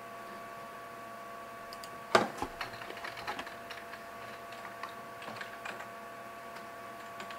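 Fingers tapping at a computer while aligning text. There is one sharp knock about two seconds in, then a run of lighter, irregular taps and clicks for a few seconds, over a steady faint hum.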